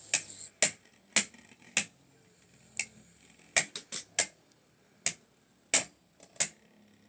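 Two Beyblade spinning tops clashing in a plastic stadium: about a dozen sharp clacks at irregular intervals, several in quick succession near the middle, as the tops knock into each other and the stadium wall.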